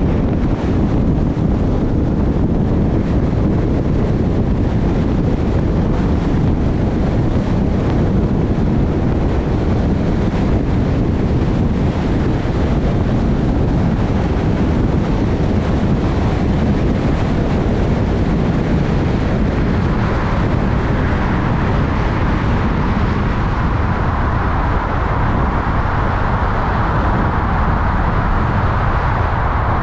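Steady rumble of a moving vehicle with wind noise on the microphone. About two-thirds of the way through, a rushing hiss grows louder over the rumble.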